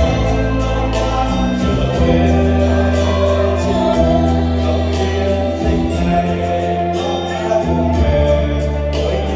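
Mixed choir of men and women singing together over an instrumental accompaniment with held bass notes and a regular beat.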